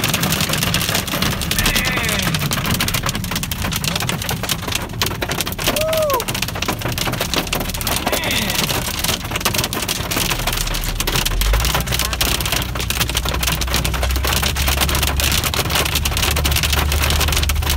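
Hail pelting a car's roof and windshield, a dense steady rattle of tiny impacts heard from inside the car. A brief squeak sounds about six seconds in, and a low car rumble joins about ten seconds in as the car drives on.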